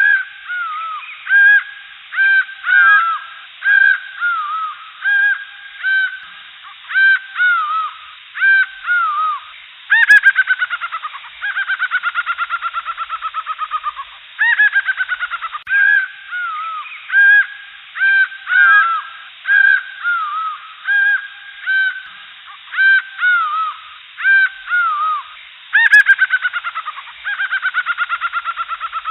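Jungle birds calling: a run of short, repeated arching calls. Fast, falling, rattling trills come in about ten seconds in, again from about twelve to fourteen seconds, and once more near the end.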